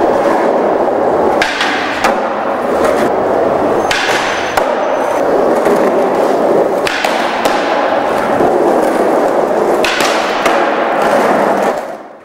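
Skateboard wheels rolling on a hard, smooth tiled floor, broken by sharp clacks of the board, several of them in pairs. The sound fades out near the end.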